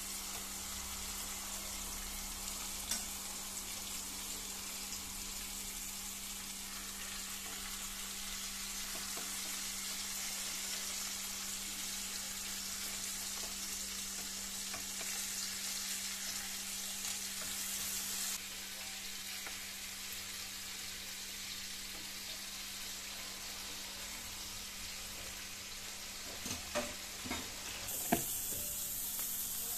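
Courgette galettes frying in hot oil in a pan, a steady sizzle throughout over a low steady hum. A few light knocks come near the end.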